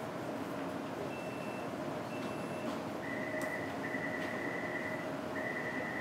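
Steady hum inside the cab of a standing Taipei Metro train, with a high electronic beep that starts about three seconds in and repeats, each beep about a second long with short gaps.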